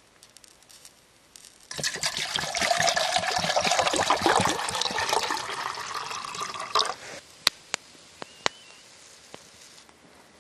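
Water poured from a bottle into a metal canteen cup: a steady splashing pour lasting about five seconds that stops abruptly. A few sharp clicks follow.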